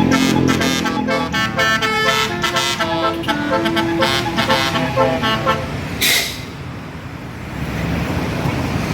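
A tour bus's basuri 'telolet' multi-tone horn playing a quick melody of separate notes, stopping about five and a half seconds in. A short hiss follows, then a low rumble.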